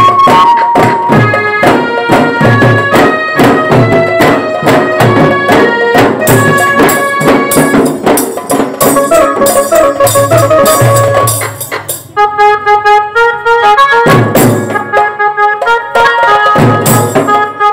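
Bengali wedding band playing loudly, with brass horns carrying a melody over steady drumming, recorded on a phone's microphone. About twelve seconds in, the drums drop out for a moment and the horns come back in on their own before the drumming resumes.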